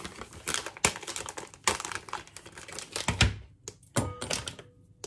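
Wrapper of a Marabou milk chocolate bar crinkling and rustling as it is opened by hand, in quick runs of sharp crackles. A couple of dull knocks come about three and four seconds in.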